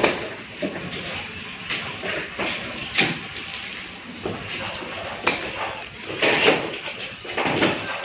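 Scissors cutting plastic packing straps and tape on a cardboard refrigerator box, with several sharp snaps and knocks and rustling of the cardboard.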